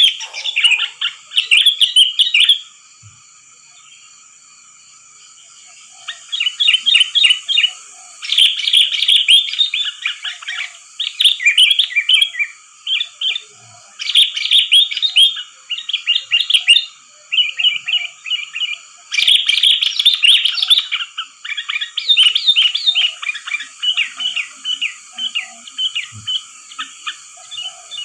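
Sooty-headed bulbul (kutilang) song: bouts of rapid, bubbly chirping phrases, pausing for about three seconds shortly after the start and then running almost without break, played as a bird-trapping lure call.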